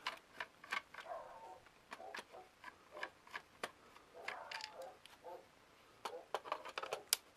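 Irregular light clicks and ticks of a screwdriver turning out the screws from the plastic back case of a Sony Dream Machine clock radio.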